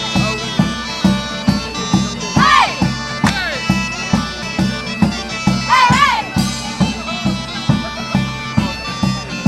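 Folk bagpipes playing a tune over a steady drone, driven by an even drum beat of about two to three strokes a second. A voice whoops twice over the music.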